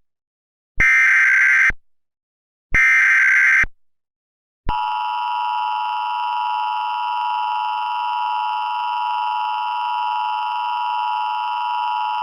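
Emergency Alert System header: two short data bursts of the SAME code, each about a second long and a second apart, then, about five seconds in, the steady two-tone EAS attention signal begins and holds.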